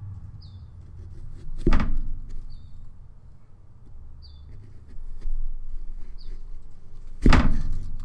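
Two loud knocks about five and a half seconds apart, from hand-carving a pumpkin with a small knife at a table, over a steady low rumble.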